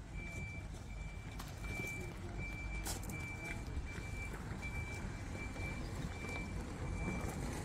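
An electronic warning beeper sounds a single high tone in short, even beeps, about three every two seconds, over a low outdoor rumble.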